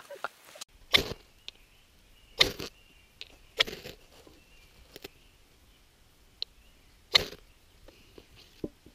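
Ferro rod scraped with the spine of a knife to throw sparks onto birch bark for lighting a fire: about five sharp strikes, one every second or two.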